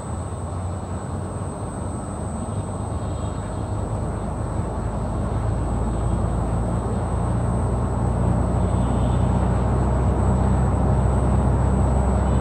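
Chigo VRF outdoor air-conditioning unit running: a steady low machine hum with a thin high whine over it, growing gradually louder through the first eight seconds or so and then holding steady.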